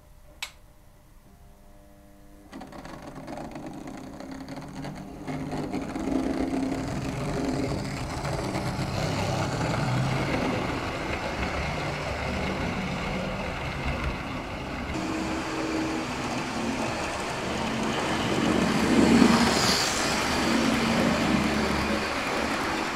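A Lima OO gauge class 52 Western model diesel locomotive and its coaches running along the track. The motor hums and the wheels rumble, growing louder as the train draws near and loudest about 19 seconds in as it passes close. There is a single small click about half a second in.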